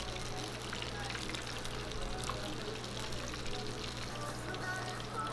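Battered squid strips sizzling and crackling in a pot of hot deep-frying oil, over a steady low hum.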